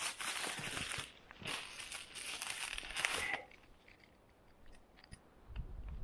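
Dry birch bark strips being torn and crumpled by hand into a tinder bundle, in two rustling spells of about one and two seconds that stop about three and a half seconds in.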